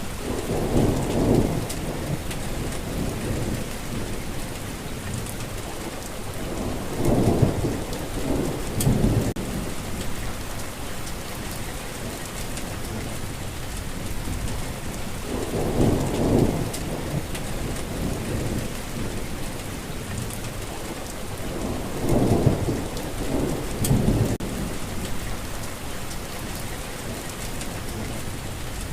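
Steady rain falling, with low rolls of thunder swelling up and fading about four times.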